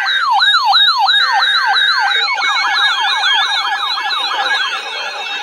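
Electronic siren sweeping downward in pitch over and over, about two sweeps a second. About two seconds in, more siren sweeps join out of step, layering into a denser wail.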